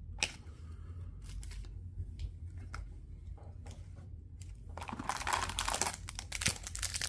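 A few light taps and clicks of cards being handled, then from about five seconds in a trading card pack wrapper crinkling and tearing as the next pack is pulled from the box and opened.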